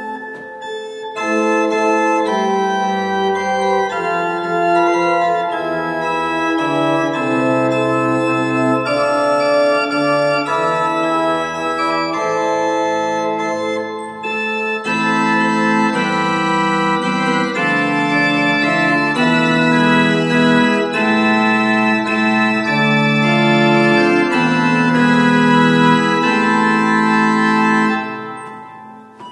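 Small two-manual Hammer pipe organ playing a piece in held chords, with a brief break in the sound about fourteen seconds in and dying away near the end.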